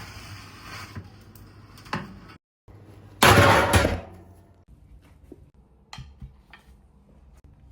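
Household handling noises: a loud rushing burst lasting under a second about three seconds in, among light knocks and clicks.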